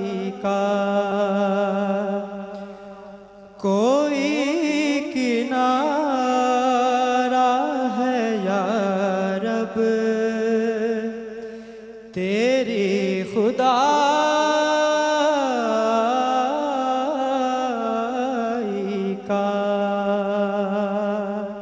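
A solo male voice chanting a hamd, an Urdu devotional poem in praise of God, into a microphone. He sings long held notes with wavering melismatic ornaments. A new phrase starts about four seconds in and another about twelve seconds in, each swelling out of a fading held note.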